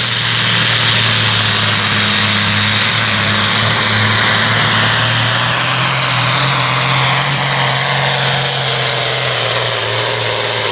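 Supersport-class pulling tractor's diesel engine running flat out under heavy load as it drags the weight sled, a loud, steady drone with a strong hiss over it.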